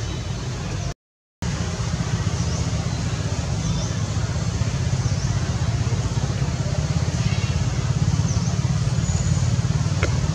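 Steady low rumbling background noise with a fine pulsing texture, cut off completely for about half a second a second in.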